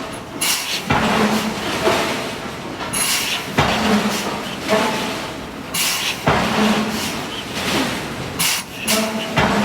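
Hydraulic forging hammer striking hot steel: four heavy blows, one about every two and a half to three seconds, each followed by a brief hum, with metallic clanks and ringing between the blows.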